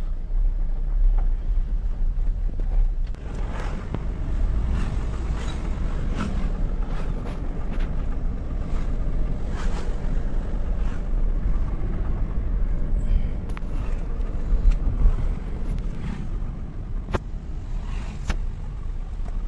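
Car driving slowly, heard from inside the cabin: a steady low rumble of engine and tyres, with scattered light clicks and knocks.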